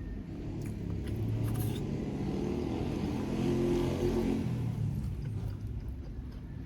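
A motor vehicle passing over a steady low rumble, its engine swelling to a peak about four seconds in and then fading away.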